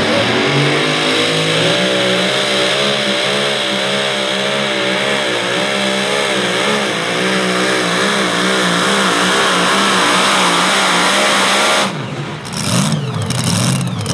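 Super modified two-wheel-drive pulling truck's engine at full throttle on a pull, its pitch wavering up and down. About twelve seconds in the throttle shuts off suddenly, and the engine falls to a lower, uneven run with one brief rev.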